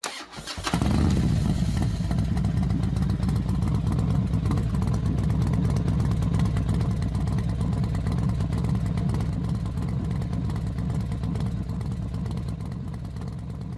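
Motorcycle engine running in a steady low rumble with rapid firing pulses, starting abruptly just under a second in and easing slightly toward the end.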